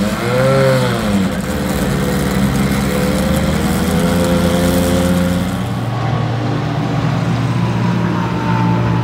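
Race car engine given one quick throttle blip, its pitch rising and falling within the first second, then running steadily at idle; the engine note drops to a lower steady drone about halfway through.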